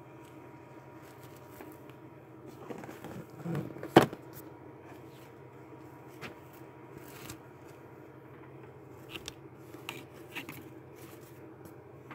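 Handling noises as a kit box is moved off the table and a painter's mat is laid out: rustling, one sharp knock about four seconds in, and a few light clicks later, over a steady low hum.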